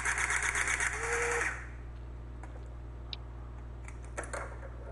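Powered hydraulic crimping tool running with a fast, even mechanical chatter as its ram compresses a copper grounding connector onto a ground rod and wire, with a brief shift in pitch about a second in that marks the crimp reaching full pressure; the motor cuts off suddenly about a second and a half in. A few light clicks follow near the end.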